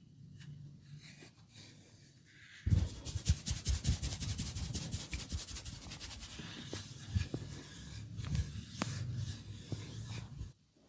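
Hands rubbing briskly over skin during a massage: a fast, dense run of rubbing strokes with soft low thuds starts about three seconds in and stops suddenly near the end.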